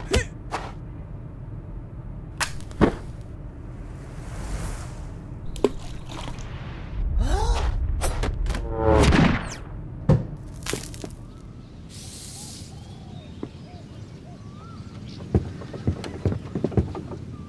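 Sound effects for a stop-motion animation: a series of sharp clicks and pops, two airy swishes, and a loud falling swoop about nine seconds in. Faint short chirps come near the end.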